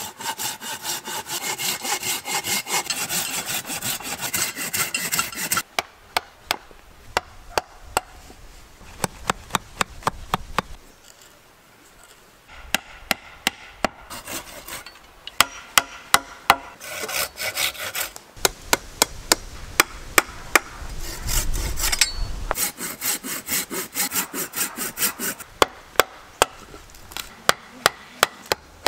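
Hand work on peeled wooden poles: a run of quick saw strokes through the wood, then many sharp taps of a chisel cutting a notch in a pole, with more short bouts of sawing between the taps.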